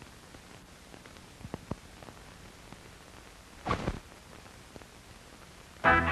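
Steady hiss of an old film soundtrack with scattered clicks and pops, and a louder crackle about two-thirds of the way through. Just before the end, brassy swing-style music starts.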